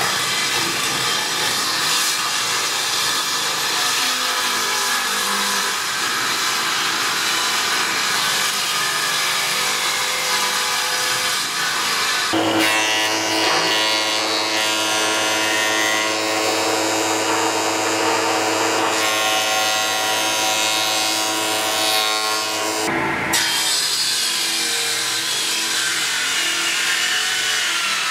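Table saw running and ripping strips off a wooden board, a steady motor drone under the noise of the cut. Partway through the sound changes abruptly to a steadier hum of several tones, then switches back a few seconds before the end.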